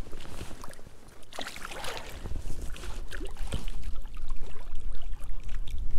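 Wind buffeting the microphone, growing stronger in the second half, over small waves lapping at a pond's muddy bank, with a few faint rustles and knocks.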